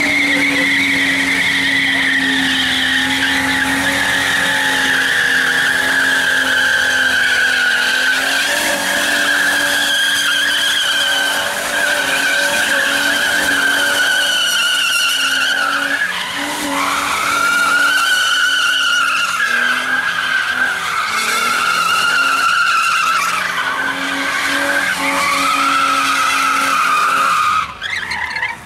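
Holden VN Commodore's 3.8-litre Buick V6 held at high revs through a burnout, with the spinning rear tyres squealing. Past the halfway point the revs dip and climb again several times, and near the end the engine backs off sharply.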